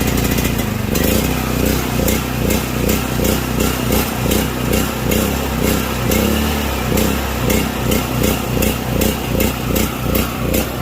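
Powermate 3000 portable generator's engine running just after starting, its sound swelling and fading in a regular pulse a little under twice a second: the engine is surging rather than holding a steady speed. The pulsing sets in about a second in.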